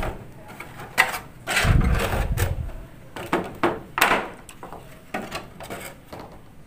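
A die-cast metal toy crawler crane being handled and moved on a tabletop: a string of clicks and knocks, with a low rumble about two seconds in.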